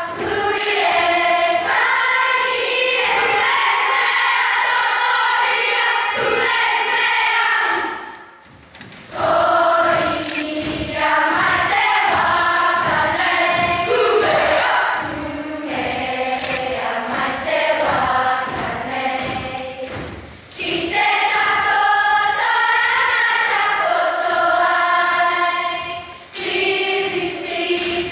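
Children's kapa haka group singing together as a choir, in phrases with short breaks between them. A steady beat of thuds runs under the singing through the middle stretch.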